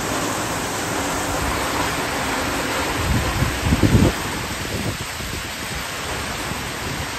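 A heavy tropical downpour gives a steady, dense hiss of rain on roofs, road and foliage. About three to four seconds in, a few low rumbles of wind gust across the microphone.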